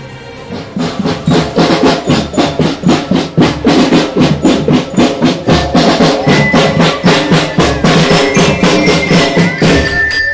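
School marching band playing as it marches: snare and bass drums beating a fast, steady rhythm that starts about a second in, with bell lyras (marching glockenspiels) ringing high metallic notes over the drums in the second half.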